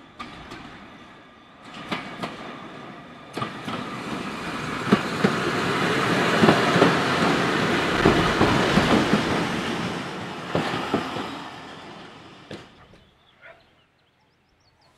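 A train passing by on a preserved railway, its wheels clicking over the rail joints; the sound builds to a peak about halfway through and fades away near the end.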